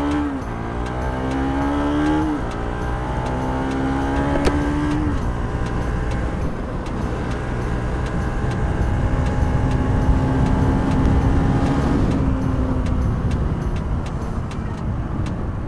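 Motorcycle engine running under way. Its pitch climbs over the first two seconds and drops back, then holds steady with smaller rises and falls, over a steady rushing noise.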